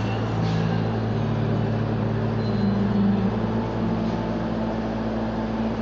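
Steady machine hum from running shop equipment, a low drone with a few steady tones and an even hiss over it.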